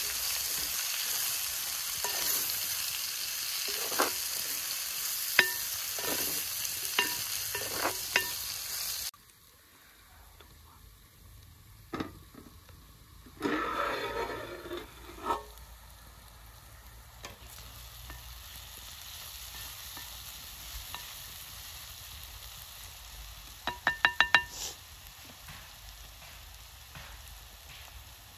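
Sliced onions frying and sizzling in hot oil in a pan, stirred with a metal spoon that clicks against the pan every second or two. The sizzle drops away abruptly about nine seconds in, leaving a quieter frying hiss with a few scrapes and knocks. Near the end come five quick ringing metal clinks against the pan.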